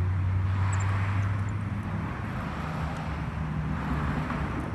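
A low, steady engine drone whose pitch shifts slightly higher about halfway through.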